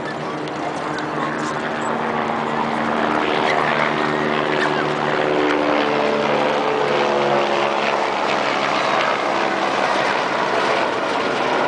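A motor drone over a steady noise of wind and city. Its pitch rises through the middle and it grows a little louder, then fades.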